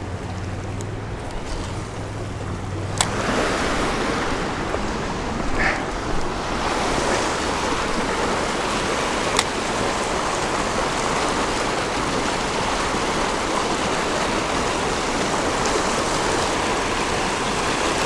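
Creek water rushing steadily over a cascade. It gets louder and fuller after a click about three seconds in, with a couple of faint knocks later.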